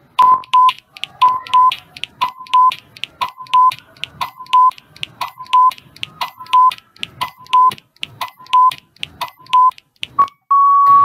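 Quiz countdown-timer sound effect: a short double beep with a sharp tick about once a second, repeating about ten times, then one longer beep near the end as the countdown runs out.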